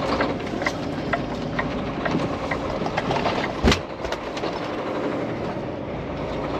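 Peterbilt semi truck heard from inside the cab, pulling away slowly in a low gear, with a rhythmic knocking about three times a second and one heavier thump about halfway through. The driver cannot place this knocking, which he hears in the lower gears.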